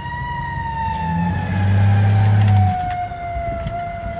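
Fire truck siren wailing, its pitch peaking at the start and then slowly falling, over the truck's engine rumble. About a second and a half in, a deep horn blast of about a second is the loudest sound.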